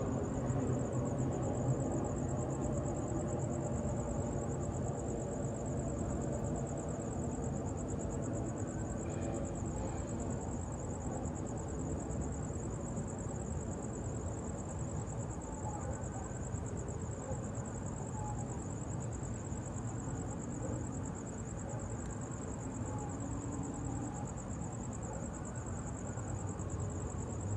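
Crickets trilling in a continuous high-pitched, finely pulsing chorus, over a low steady rumble of distant traffic.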